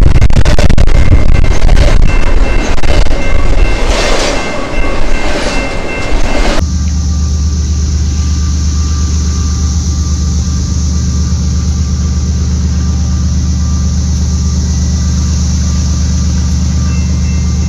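BNSF double-stack intermodal freight cars rolling past close by: a loud rumble and clatter. About six and a half seconds in, this cuts to the steady low drone of BNSF diesel locomotives approaching slowly at the head of a freight train.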